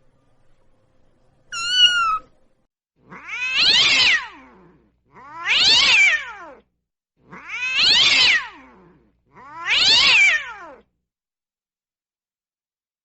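Cat meowing: one short meow about a second and a half in, then four long drawn-out meows at even spacing, each rising and then falling in pitch.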